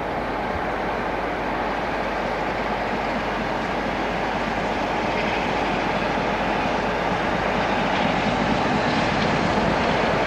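Class 47 diesel-electric locomotive's Sulzer twelve-cylinder engine working as it draws a train slowly along the platform, a steady drone that grows slowly louder.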